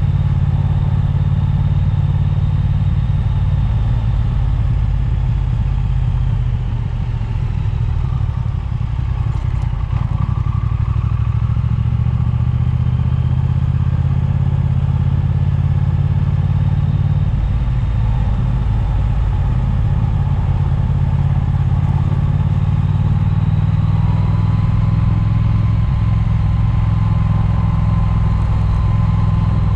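Triumph motorcycle engine running as it rides along, with wind rushing over a chest-mounted microphone. The level dips slightly about six seconds in.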